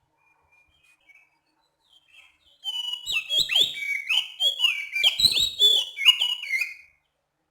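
Oriental magpie-robin (kacer) singing: a few faint notes, then from about two and a half seconds in a loud run of quick, clear whistled phrases that stops about a second before the end.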